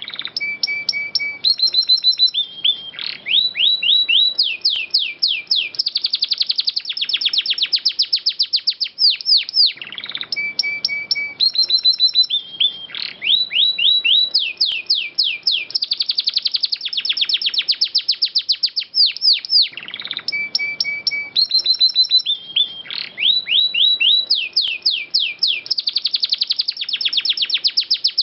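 Domestic canary singing long rolling trills and fast chirping phrases. The same song sequence repeats about every ten seconds, as in a looped canary tutor recording.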